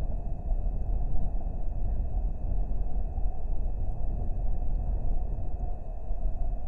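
Wind buffeting an outdoor camera microphone: a steady, gusting low rumble with no bird calls, and a faint constant high whine underneath.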